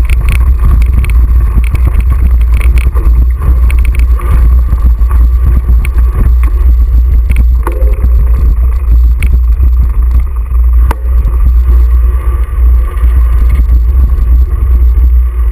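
Mountain bike riding over a rough grass and dirt trail, heard through a GoPro action camera: a loud, steady low rumble of wind and vibration on the camera, with light rattles and a couple of sharp clicks about halfway through.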